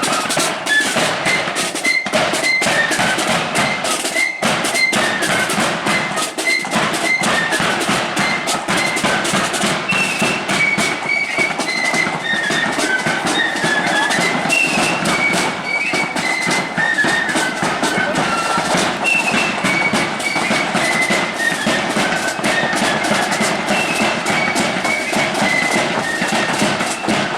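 Ulster marching flute band playing a tune: a high flute melody over steady drumming.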